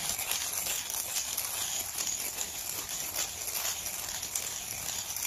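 Manual coffee grinder crushing coffee beans between its burrs as the crank is turned by hand, a steady dense crackle. The grinder is set for a medium pour-over grind.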